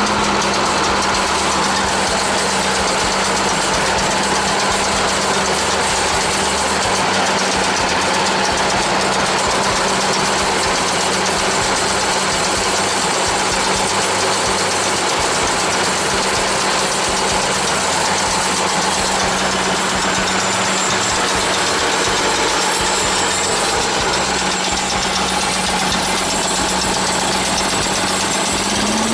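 Harbor Freight Predator 212 cc single-cylinder engine driving a Yardman chipper shredder, running at a steady speed with a mechanical rattle from the machine. It speeds up again right at the end.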